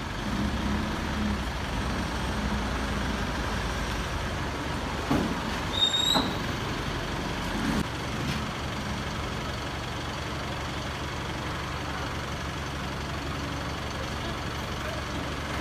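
Steady low hum of a vehicle engine running, with a few knocks about five to six seconds in and a brief high squeak around six seconds.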